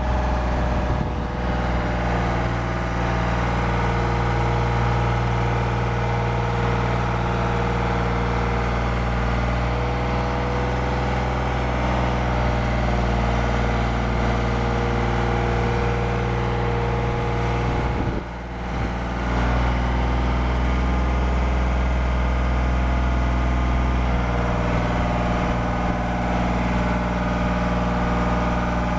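Engine of a 2006 Genie GS3383 scissor lift running steadily, with a brief dip in level about eighteen seconds in.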